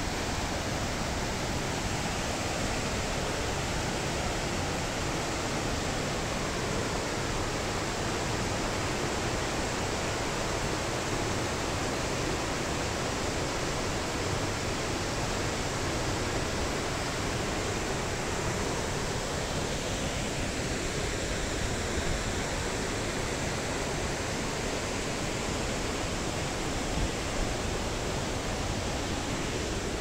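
Waterfall and the swollen stream below it rushing over rocks: a steady, unbroken wash of water noise. The fall is in heavy winter flow, running very hard.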